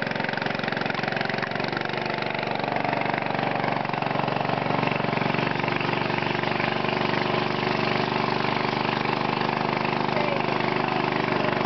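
A small river boat's motor running steadily under way, picking up slightly about four seconds in.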